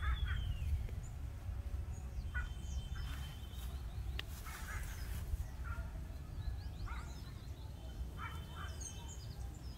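Birds calling in short, scattered chirps and whistles over a steady low rumble, with one sharp click about four seconds in.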